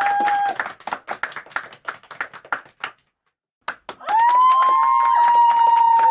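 A crowd's cheer cuts off, leaving scattered applause that thins out to a few single claps, then a moment of dead silence. About four seconds in, a new crowd starts cheering and clapping, with voices shouting long held calls.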